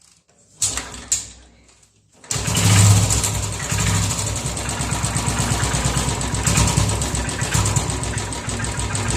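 Royal Enfield UCE single-cylinder motorcycle engine started: a brief sound about a second in, then it fires up a little over two seconds in and runs steadily at idle. The engine carries an internal noise that the mechanic says calls for opening the engine.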